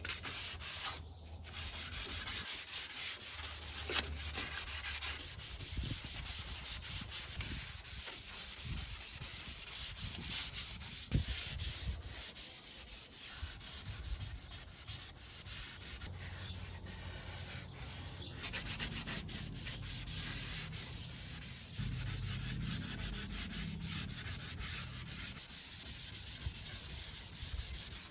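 Sandpaper rubbing over the steel body panels of a 1992 Honda Civic EG hatch in repeated strokes, taking off surface rust and smoothing the body for primer.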